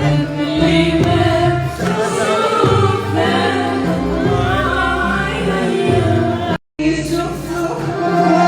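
Music with singing voices over instrumental accompaniment, cut off by a sudden brief gap about two-thirds of the way through.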